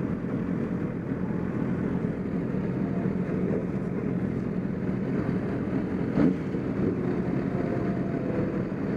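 Racing motorcycle engine running steadily at speed under a dense rushing noise, with one brief knock about six seconds in.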